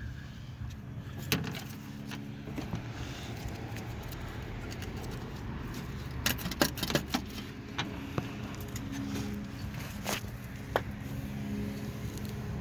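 Scattered sharp metallic clinks and clatters, bunched together about halfway through, over a steady low mechanical hum.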